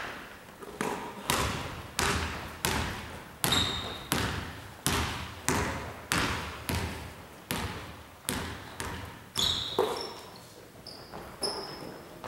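A basketball being dribbled on a hardwood gym floor, a steady run of bounces about one and a half a second, each ringing on in the hall's echo. A few short sneaker squeaks come in near the end.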